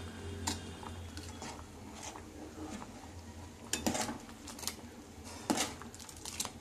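Perforated steel spoon stirring thick dal in a pot, knocking and scraping against the pan a few times, with the clearest clinks about four and five and a half seconds in.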